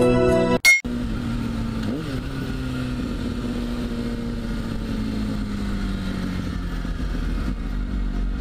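Kawasaki Ninja ZX-6R inline-four engine heard from the rider's helmet camera, its note sinking slowly as the bike slows, over steady wind noise. A sharp click about half a second in, where background music cuts off.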